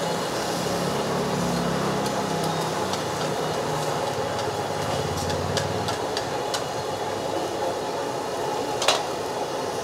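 Wok stir-frying: a metal spatula clinking against the wok a few times, the loudest clink near the end, over a steady rushing noise.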